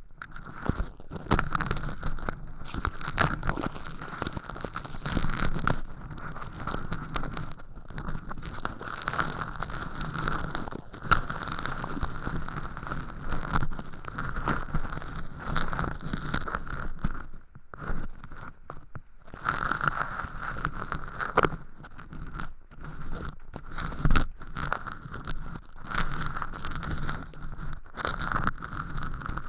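Ear pick scraping through thin, crispy, sawdust-like fake earwax inside a transparent ear-canal tube, close to a binaural microphone: a continuous crackling rustle of many small clicks, with one louder snap late on.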